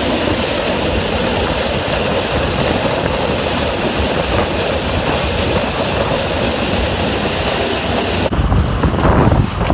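Corn harvesting machine running steadily with a loud, even mechanical noise; about eight seconds in the sound changes abruptly to a lower engine rumble with wind buffeting the microphone.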